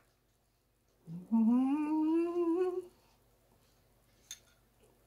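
A woman humming one long closed-mouth "mmm" for nearly two seconds, rising slowly in pitch. A faint click follows near the end.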